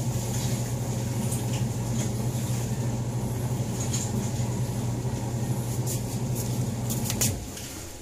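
Twin-tub washing machine's electric motor humming steadily, then cutting off about seven seconds in, with a few light clicks just before it stops.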